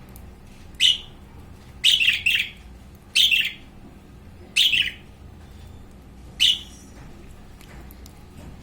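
Budgerigar giving six short, loud, harsh calls at irregular intervals, two of them in quick succession about two seconds in.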